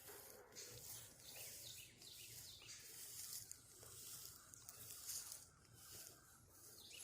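Faint bird calls, a few short falling chirps, over a soft high hiss of woodland background.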